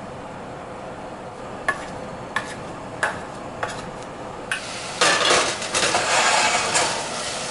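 A metal potato masher knocks about five times against the bottom of a stainless steel pot of boiled potatoes. Then, from about five seconds in, a pan of ground-pork tourtière filling sizzles loudly as it is stirred.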